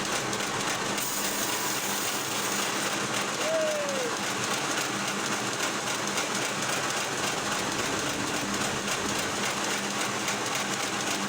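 Log-cutting machinery running steadily as one continuous mechanical noise with a low hum. A short tone rises and falls about three and a half seconds in.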